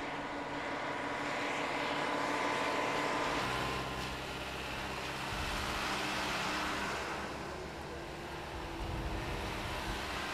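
Truck engines running as the trucks drive past, a steady low engine hum whose note shifts a couple of times.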